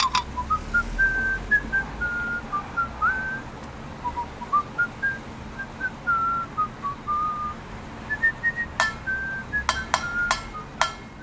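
A person whistling a slow tune in single clear notes that step up and down, with short gaps between phrases. Several sharp clicks come in near the end.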